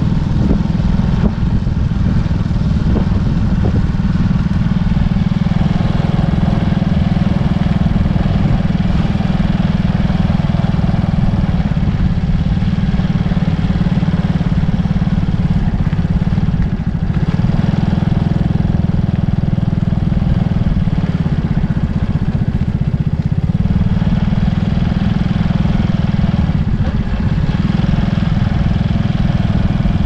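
A vehicle running steadily, its low rumble the loudest sound throughout, with a brief dip about halfway through.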